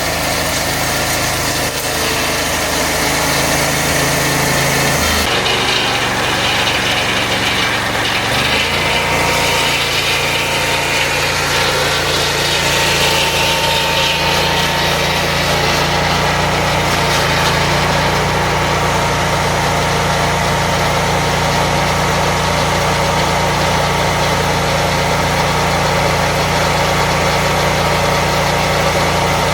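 A portable band sawmill's engine running steadily. Its note shifts about five seconds in and again just before ten seconds, then holds steady.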